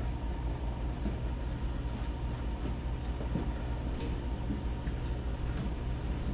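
Steady low background rumble, with a few faint short ticks.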